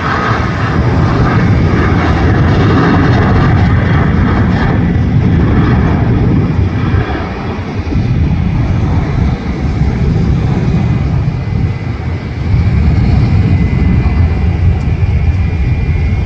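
Boeing 737 airliner's jet engines at takeoff thrust: a loud, low rumble as it rolls down the runway, lifts off about eight seconds in and climbs away.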